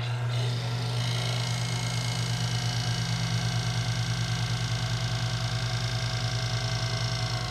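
Harbor Freight 10 x 18 benchtop mini wood lathe running with a steady, pulsing motor hum while something is held against the spinning wood to friction-burn its edge, adding a hissing rub. The small motor holds its speed under the friction load.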